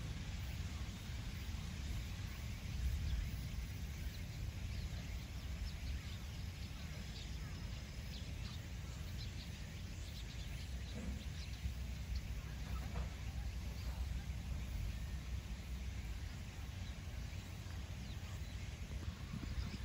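Outdoor ambience: a steady low rumble with faint bird chirps now and then, mostly around the middle.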